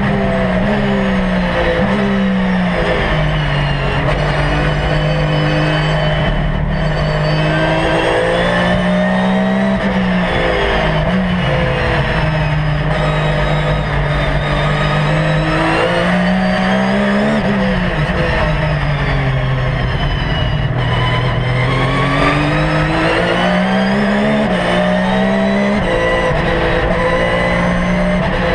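Porsche 911 GT3 R's naturally aspirated flat-six engine heard from inside the cockpit, its pitch climbing and falling again and again as the car accelerates, shifts gears and slows.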